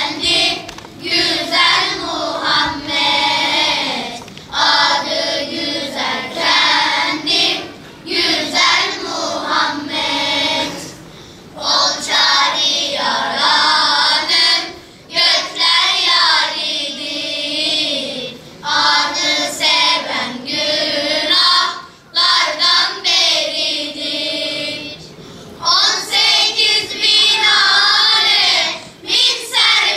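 Children's choir singing together on stage, in sung phrases separated by brief pauses.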